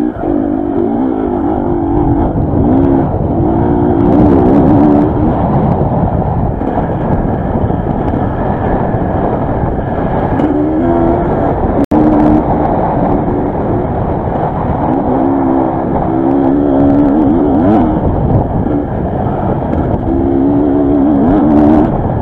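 Enduro dirt bike engine under way on an off-road course, close to the onboard camera, revving up and down over and over as the rider opens and closes the throttle.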